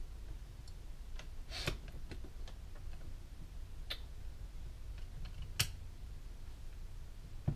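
Scattered sharp clicks and taps of the two halves of an airsoft gearbox shell knocking together as they are fitted over the gears and bushings, a few seconds apart, the loudest about three quarters of the way through, over a low steady hum.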